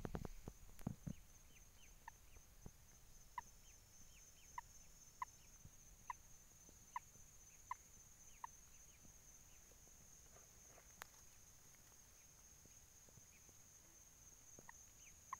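Near silence, with a faint series of short chirping calls, about nine of them a little under a second apart, over a steady high-pitched whine. A few soft thumps come at the start.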